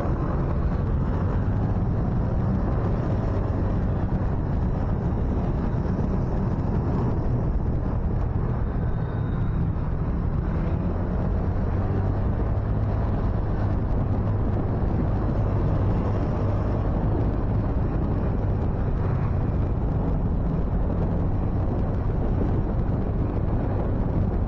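Steady low rumble of a motorcycle under way: the engine running at cruising speed mixed with wind buffeting the microphone.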